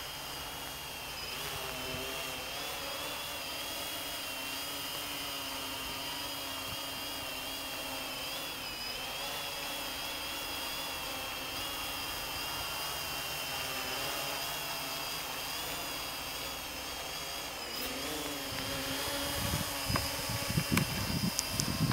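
Small quadcopter drone hovering and drifting, its motors and propellers giving a steady high whine whose pitch wavers slightly. Near the end, knocks and rustling as the camera is handled.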